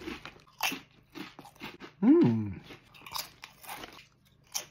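Crisp wavy garlic-baguette Sun Chips being bitten and chewed close to the microphone: a series of irregular sharp crunches. About two seconds in there is a short loud hum from the eater that falls in pitch.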